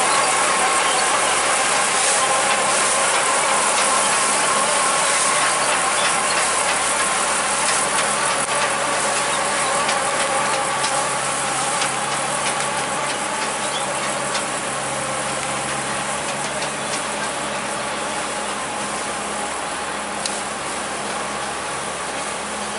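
Meyer forage wagon unloading chopped corn silage out its rear door: the floor apron chain and unloading drive clatter steadily over a running tractor engine. The sound fades slowly as the wagon pulls ahead.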